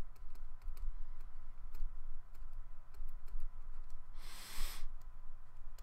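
Light scattered clicks and taps of a stylus writing on a tablet, over a low steady electrical hum. A short hiss about four seconds in is the loudest sound.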